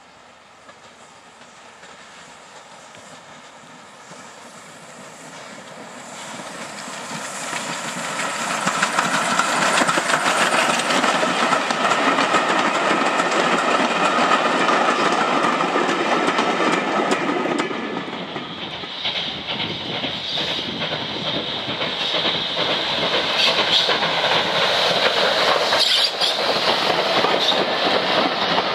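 Steam-hauled train of vintage carriages approaching and running past, growing louder over the first several seconds. Then, after a short dip, carriages rolling by close with wheels clicking over the rail joints.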